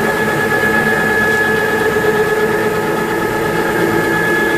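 CNC router spindle running steadily with a high whine while a fly cutter takes a very light finishing pass of about half a thousandth on a plate. The cutter is rubbing rather than cutting cleanly, hard enough to shift the part on the vacuum fixture.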